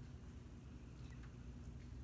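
Low steady hum, with one faint short high chirp about a second in and a light click soon after.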